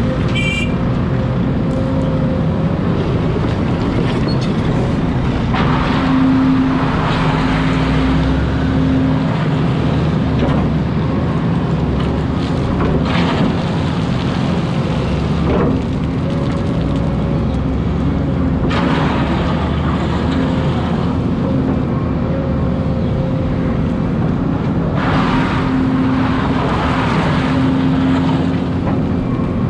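Hidromek excavator's diesel engine running steadily under hydraulic load as the arm and bucket work, its note firming up at times. A burst of scraping noise comes about every six seconds as the bucket digs into the soil.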